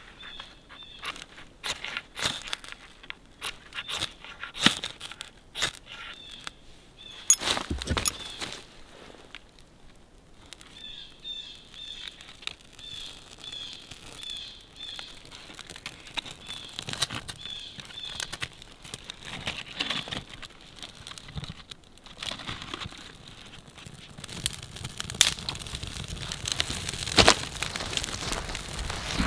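A knife scraping and striking at a curl of birch bark in quick irregular strokes, then the bark burning and the kindling fire catching and crackling, getting louder near the end. A small bird chirps repeatedly in the background.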